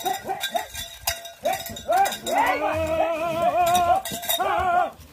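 Bell hanging from a bucking bull's bull rope clanking rapidly and unevenly as the bull bucks, ringing several times a second and more continuously through the middle.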